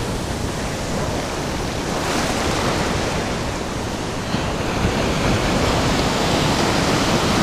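Ocean surf breaking and washing up the beach, a steady rush of water that swells a little near the end.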